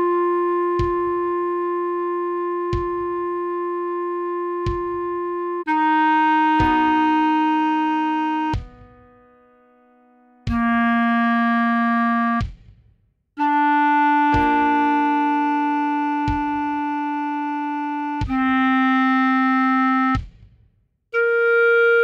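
Slow clarinet melody of long held notes over soft keyboard chords, with a light tick about every two seconds and brief rests between phrases; a lesson rendition played at half speed.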